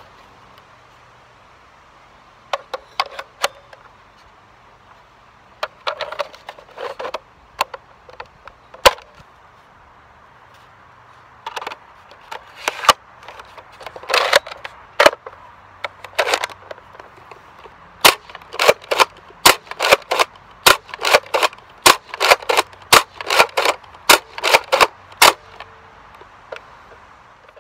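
Nerf Recon CS-6 blaster being worked: sharp plastic clacks of the priming slide and the snap of the spring plunger, in short scattered clusters at first, then a quicker run of about three a second in the second half.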